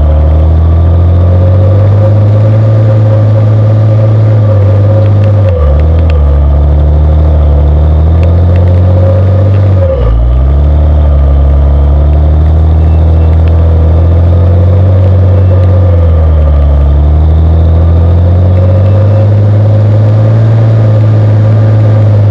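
Timberjack 460 skidder's diesel engine heard close up at its exhaust stack, running loud at high revs. Its revs dip and climb back three times, about five, ten and sixteen seconds in.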